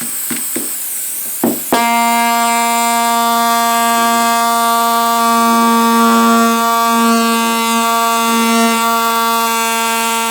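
Chicago Pneumatic CP9361 pneumatic air scribe: a hiss of compressed air and a couple of clicks, then about two seconds in the tool starts and runs with a steady, high buzz as its stylus hammers at up to 13,500 blows per minute.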